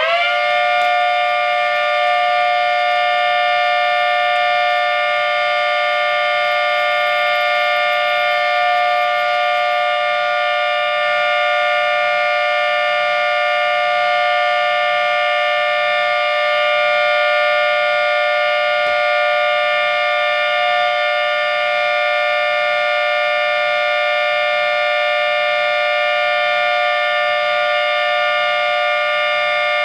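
1/3-scale model of a 3T22 three-tone siren at full speed, sounding a steady alert: a loud chord of several pitches held level, without wailing up or down.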